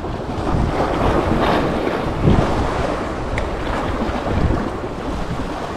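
Wind buffeting the microphone over the wash of sea waves, rising and falling in gusts.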